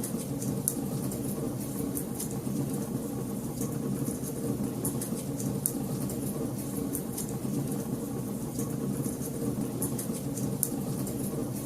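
Wood fire crackling: many small, sharp pops and snaps at irregular intervals over a steady low rumble.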